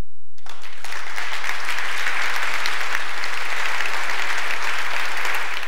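Audience applauding, a dense steady clapping that starts about half a second in and fades out at the end.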